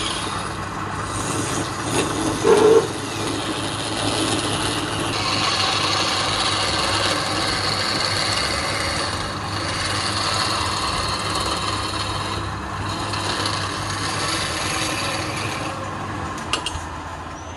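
Wood lathe running while a hand chisel shaves a spinning wooden vase blank: a steady rasping hiss of cutting over the motor's hum, with one brief louder bump about two and a half seconds in. Near the end the cutting hiss stops and a few light clicks follow.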